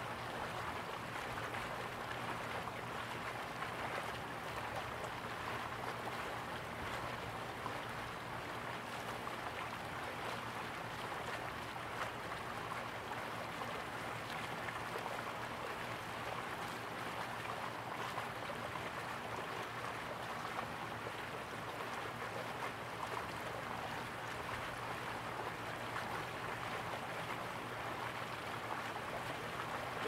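River water flowing: a steady, even rush with no breaks, over a faint low steady hum.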